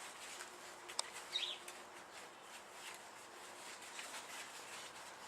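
Soft snoring of a sleeping dog, with a short high whistling squeak about a second and a half in and a light click just before it.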